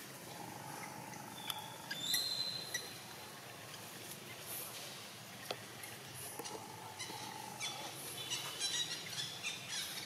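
Outdoor ambience with bird calls: a short high whistle about two seconds in and a run of quick high chirps near the end, over a faint steady background hum.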